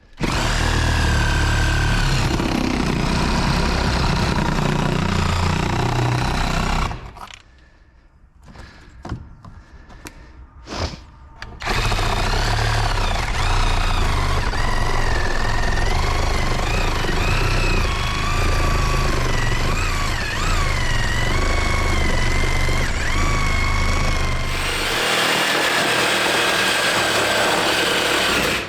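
A reciprocating power saw cutting out a hole through a wall, its motor whine wavering under load. It stops for a few seconds about seven seconds in, gives a couple of short spurts, then runs again, and the sound changes near the end.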